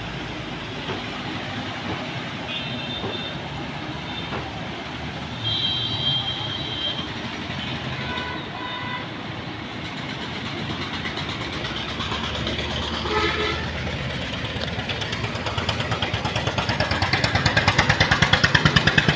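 Road traffic: a steady vehicle rumble with horns beeping several times, then an engine drawing close and getting much louder with a fast, even pulsing near the end.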